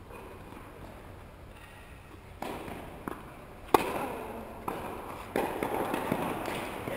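Tennis ball knocks: one sharp pop about four seconds in, then lighter knocks roughly every second, over a low steady background hum.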